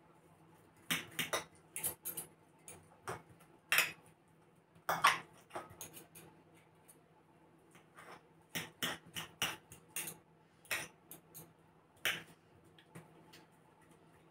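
Fork clinking and scraping against a plate in irregular sharp taps as cooked chicken pieces are pulled apart.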